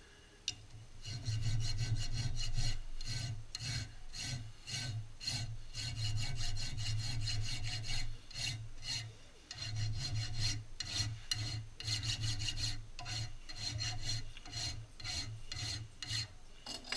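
Hand file rasping over the steel of a shotgun action clamped in a vise, in quick repeated strokes of about two or three a second. They start about a second in, with a short break a little past the middle.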